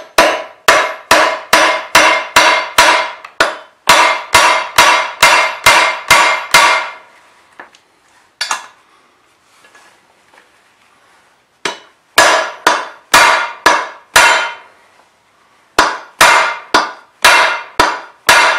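Hammer blows on a steel bearing and seal driver, driving a chrome oil filler tube into an interference-fit hole in an aluminium intake manifold. Each blow gives a sharp strike with a short metallic ring, about two and a half a second, in three runs with pauses of a few seconds between.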